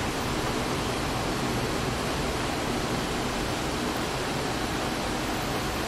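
Steady, even hiss of room background noise.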